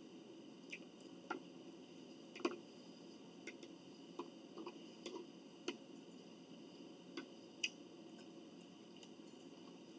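Quiet, irregular light clicks and clinks of utensils against bowls and plates while soup and salad are eaten, about a dozen in all; the sharpest comes about two and a half seconds in.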